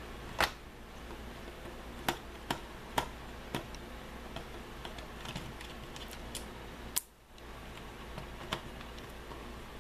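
Scattered sharp clicks and ticks of a small screwdriver and fingers working screws out of a Syma X8C quadcopter's plastic arm, about seven in all, the loudest about half a second in and about seven seconds in, over a faint steady hum.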